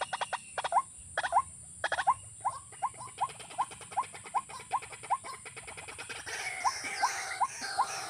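Watercock calling: a fast run of clicking notes, then a steady series of short rising notes, about three a second.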